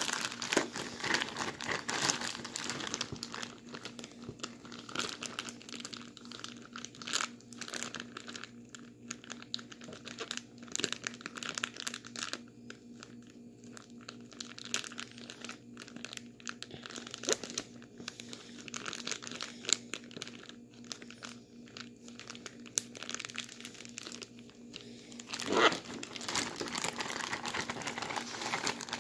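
Plastic bag of ice and salt crinkling and rustling, with ice crunching inside, as it is shaken to freeze a bagged drink into slush. The rustling is irregular and goes on throughout, with a louder burst near the end.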